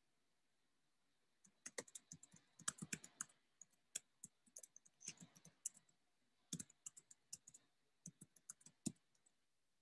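Typing on a computer keyboard: irregular keystrokes in quick runs, starting about a second and a half in and stopping near the end.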